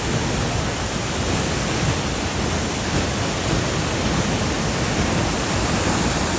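Waterfall rushing: a loud, steady roar of falling water, strong with rainy-season flow.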